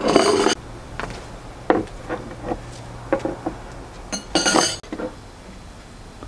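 Dishes, glassware and cutlery clinking and knocking as they are set down on a table. There are two short, loud scraping clatters, one at the start and one about four seconds in.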